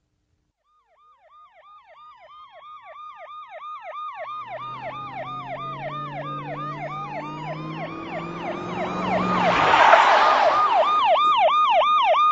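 Emergency vehicle sirens approaching: a fast yelp sweeping up and down about three times a second, growing steadily louder, with a slower wail rising and falling over it and a low steady drone through the middle. A brief rush of noise about ten seconds in is the loudest moment.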